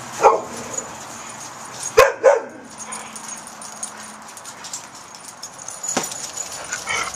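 Dog barking in play: one short bark about a third of a second in, then two quick barks close together around two seconds in, with a sharp tap later on.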